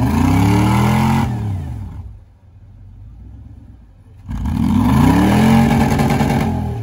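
Off-road vehicle's engine revved hard twice, stuck in deep mud. Each time the pitch climbs, holds for about a second and drops away, the second rev starting about four seconds in.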